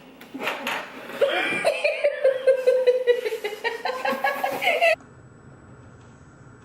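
High-pitched laughter in rapid bursts for about four seconds, cut off suddenly, followed by quiet room tone.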